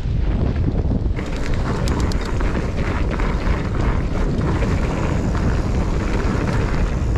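Wind rushing over the microphone of a mountain bike riding down a trail, with a clatter of small clicks and rattles from the bike and trail starting about a second in.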